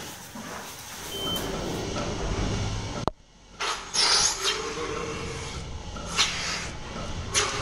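Milking machine running steadily in the parlour. It breaks off briefly about three seconds in, then hisses in loud bursts of sucked-in air as the teat cups of the milking cluster are put on a cow's teats.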